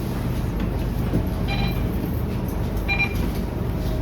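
Scania K230UB city bus running, heard from inside: a steady low engine and road rumble, with two short high-pitched chirps about a second and a half apart.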